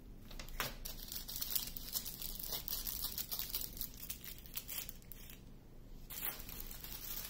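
Small clear plastic bags of diamond painting drills crinkling as they are handled and moved by hand, with a quieter pause about five seconds in.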